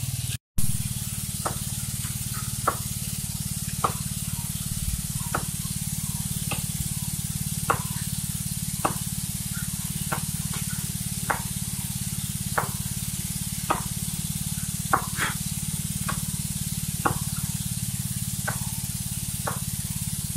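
Hand axe chopping into a coconut palm trunk: short sharp blows at an even pace, about one a second, over a steady low hum.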